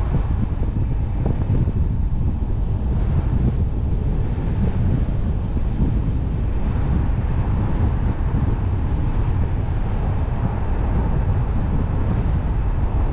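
A car driving along a road: a steady low rumble of tyre and road noise with wind buffeting the microphone, unbroken throughout.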